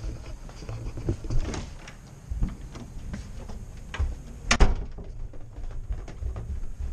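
Footsteps and rustling from a hand-held camera as someone walks through a house, with a few knocks. A sharp door knock about four and a half seconds in is the loudest sound.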